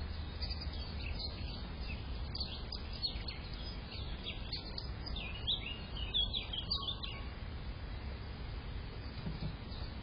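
Small garden birds chirping, a flurry of short high chirps that thins out after about seven seconds, over a steady low background noise.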